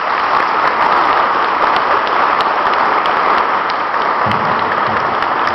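Audience applauding, a loud, steady clapping of many hands.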